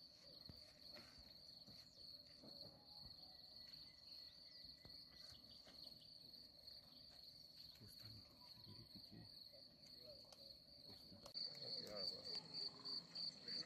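A high-pitched insect trill, likely crickets, runs steadily. Near the end it turns louder and pulses at about three chirps a second, with faint voices talking in the distance underneath.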